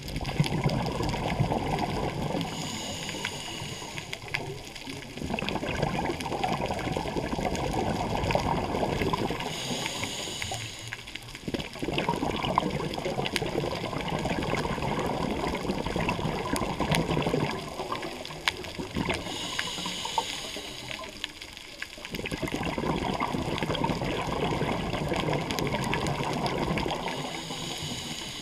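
Scuba regulator breathing heard underwater: long bubbling exhales alternating with short hissing inhales, about four breaths.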